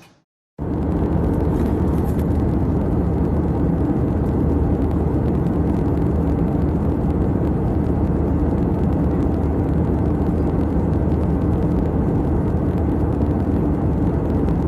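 Steady, loud rumble of a vehicle in motion, with a droning low hum. It starts abruptly about half a second in and holds unchanged.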